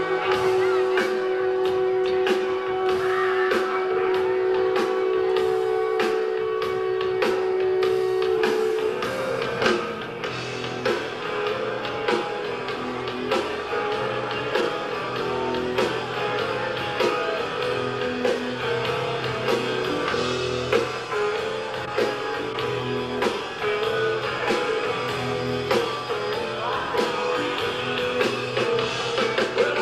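Rock band playing live: electric guitar, bass guitar and drums. For about the first nine seconds long notes are held over steady drum strokes, then the band breaks into busier playing.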